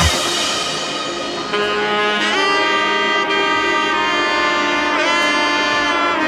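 Background music with long held horn notes that slide up into pitch; the heavy drums stop right at the start.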